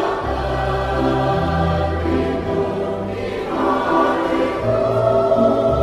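Mixed choir of children and adults singing an Indonesian national song, with sustained low bass notes of the accompaniment underneath that change every second or two.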